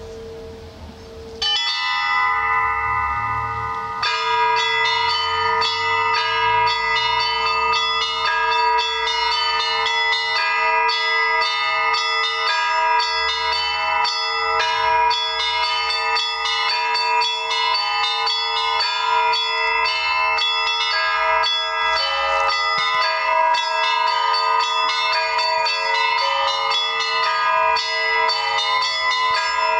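Russian Orthodox church bells being rung. One bell is humming at first, and more bells come in about a second and a half in. From about four seconds, rapid strikes of small high bells ring over the sustained tones of the larger bells.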